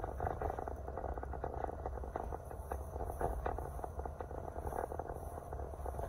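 Car cabin noise while driving: a steady low road and engine rumble with a fast, crackly rattle on top.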